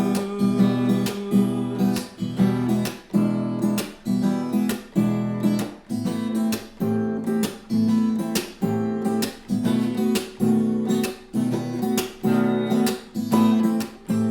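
Acoustic guitar strummed in an even rhythm, a strum about every half second or so, playing an instrumental break with no singing.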